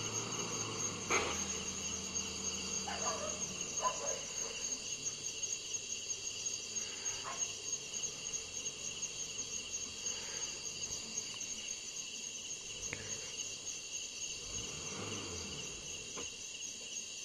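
Night insect chorus of crickets: a steady, high-pitched trilling in several layered bands, with a faint low hum underneath in the first few seconds.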